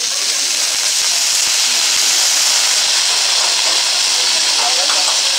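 Liquid squirted from a squeeze bottle onto vegetables on a hot teppanyaki griddle, hissing loudly as it flashes to steam. The hiss starts suddenly and holds steady.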